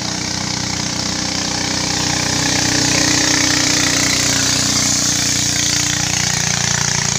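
Small boat engine running steadily, growing louder over the first few seconds and then holding.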